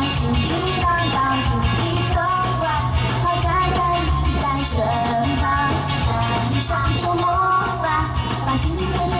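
A woman singing a pop song live into a handheld microphone over loud amplified backing music with a steady beat and heavy bass, heard through the stage PA.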